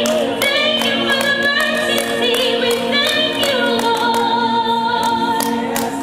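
Gospel worship song with choir-like vocals holding long notes over a backing track, moving to a new held note partway through.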